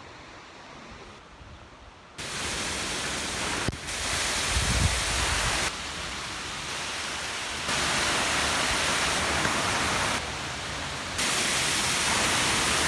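Steady rush of water from a waterfall, its loudness jumping up and down abruptly several times from one shot to the next, and quieter for the first two seconds.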